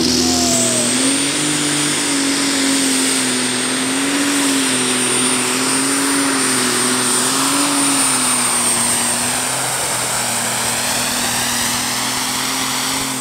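Modified John Deere 6466 straight-six super stock pulling tractor engine running flat out on methanol, hauling the pulling sled. A high turbocharger whine climbs in the first second and then holds over an engine note that wavers up and down as the tractor works down the track.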